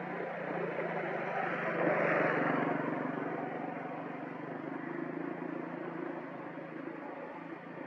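A motor vehicle's engine running, with a steady low hum; the sound swells to its loudest about two seconds in, then eases off.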